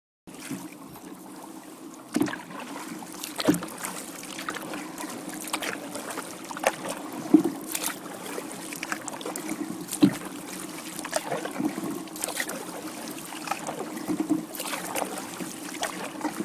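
Kayak paddling on calm water: paddle blades dipping and splashing at an uneven pace, with an occasional sharp knock, likely the paddle striking the kayak.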